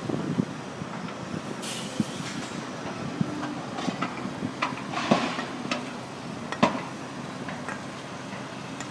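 Caterpillar 324D hydraulic excavator at work: its diesel engine running steadily under a series of sharp knocks and clanks, with a brief hiss just before two seconds in.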